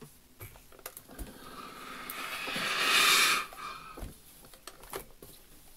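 Philips steam iron releasing a burst of steam while pressing a seam flat: a hiss that swells for about two seconds and then cuts off suddenly.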